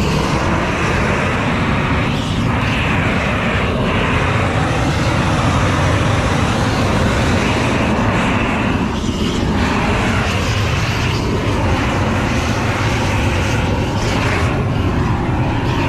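Gas blowtorch burning steadily, a loud continuous rushing noise.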